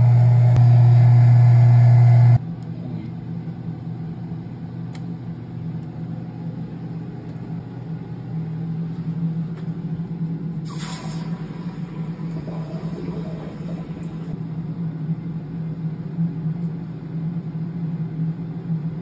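Vacuum casting machine's pump running with a loud steady hum under the freshly poured flask, cut off abruptly about two seconds in. Then a quieter steady machine hum, with a short hiss about eleven seconds in.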